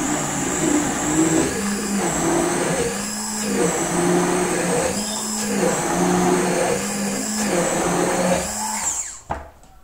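Electrolux stick blender running at its normal, non-turbo speed, chopping leaves in a cup of milk; its motor pitch dips briefly about every second and a half as the blades bite. It cuts off near the end, followed by a single knock.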